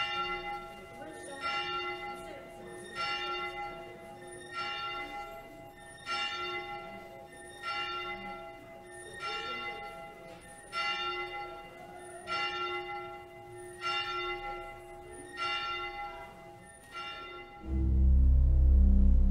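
A single church bell tolling, struck about every second and a half, about a dozen strokes, its hum ringing on between strokes. Loud organ music comes in near the end.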